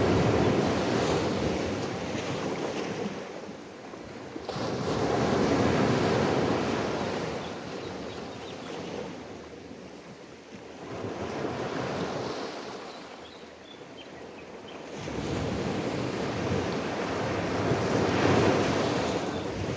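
Ocean waves washing in on the shore, the surf swelling and falling away in slow surges about every four to six seconds.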